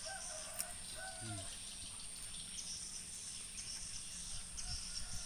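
A cat crunching and chewing cooked chicken bones, a few faint sharp cracks, over steady chirring of insects. Two short chirp-like calls sound in the first second and a half.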